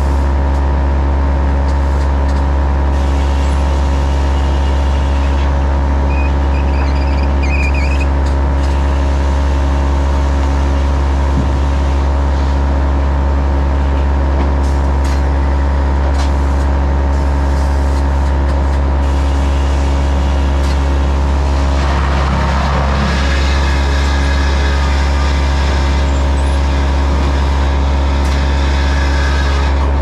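Sawmill machinery running: the conveyor chains and drives make a loud, steady drone with a constant low hum. A brief louder rush of noise comes about 22 seconds in.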